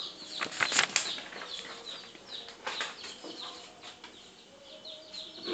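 Small birds chirping over and over in short, high, falling calls. A cluster of sharp clicks comes about half a second in, and a few more near the middle.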